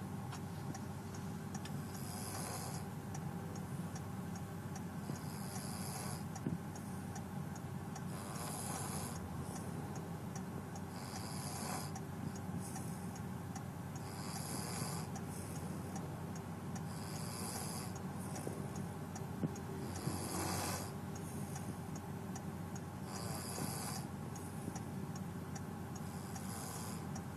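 Springer spaniel asleep and snoring, with a snore about every three seconds.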